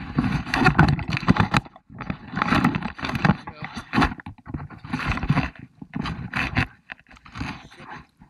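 River water splashing and sloshing right at the microphone in about six heavy, uneven bursts roughly a second apart, each with a scraping, clattering edge.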